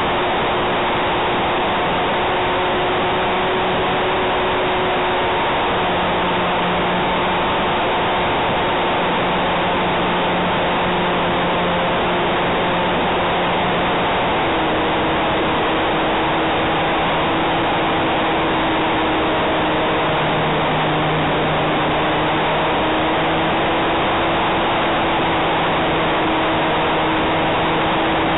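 Onboard sound of a Hype Cessna 400 Corvalis RC model plane in flight: a steady rush of air over the camera with the hum of its motor and propeller, whose pitch dips slightly about halfway through.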